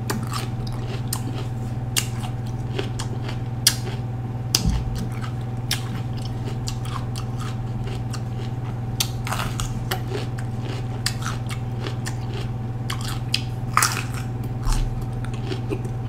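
Close-up chewing and biting of a raw orange bell pepper: irregular crisp crunches and wet clicks from the mouth. A steady low hum runs underneath.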